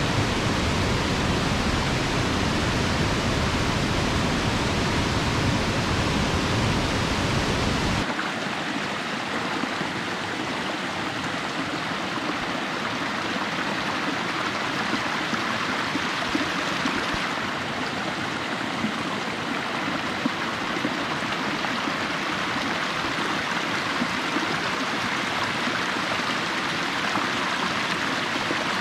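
Waterfall water rushing steadily. About eight seconds in there is an abrupt change: the deep rumble drops away and a lighter rushing sound is left.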